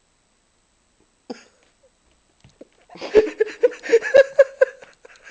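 A person laughing in a quick run of about seven giggles, about four a second, starting a little past the middle and trailing off at the end.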